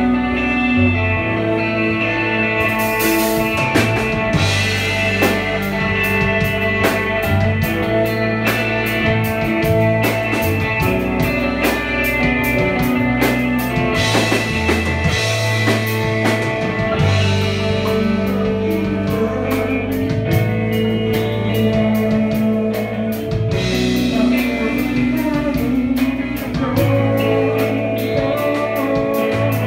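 Live rock band playing: electric guitars and bass guitar over a Tama drum kit keeping a steady beat, with a woman singing.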